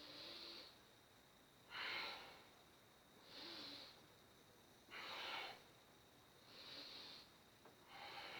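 Faint nasal breathing: six short, hissy breaths in and out at an even pace, about one every second and a half.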